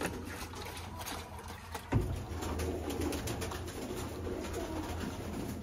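Domestic pigeons cooing, with a sharp knock about two seconds in.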